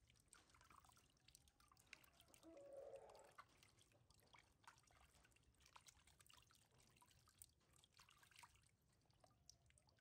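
Faint water dripping, trickling and splashing as hands scoop water over a newborn baby monkey in a plastic basin, with many small drips throughout. A brief, slightly louder muffled sound comes about three seconds in.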